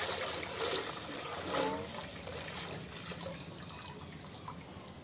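Milk being poured from a metal pot into a large metal kadhai, a splashing pour that thins out to a trickle near the end.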